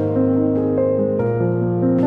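Instrumental background music with slow, held chords that change every second or so.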